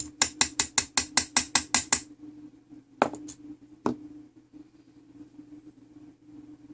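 Small metal clock movement being worked by hand: a rapid, even run of ratchet-like clicks, about six a second for two seconds, then two single clicks a second or so apart.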